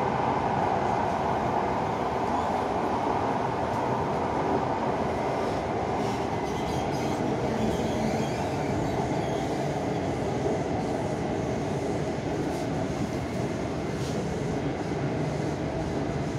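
Metro train running at speed, heard from inside the car: a steady rumble of wheels on rails and running gear.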